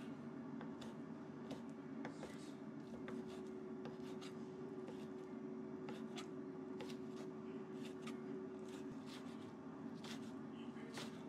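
Chef's knife chopping smoked duck into small pieces on a wooden cutting board, the blade striking the board about twice a second in an uneven rhythm. A steady low hum runs underneath.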